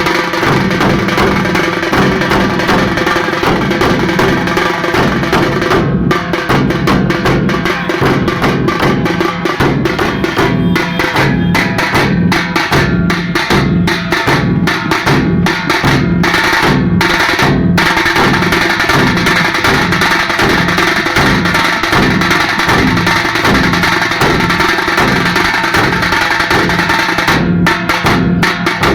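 Group of halgi frame drums beaten with sticks in a loud, fast, steady rhythm.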